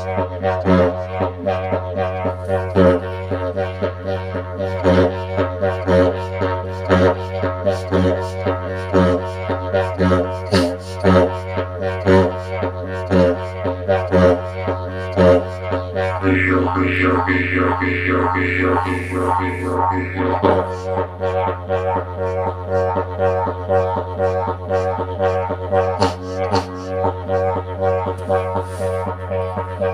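Didgeridoo played with a steady low drone, pulsed in a rhythm of about two accents a second. From about 16 to 20 seconds in a brighter, buzzier overtone pattern comes in, then the plainer pulsing drone returns.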